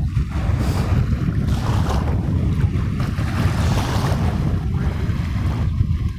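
Wind buffeting the microphone: a steady, fluctuating low rumble with a lighter hiss over it.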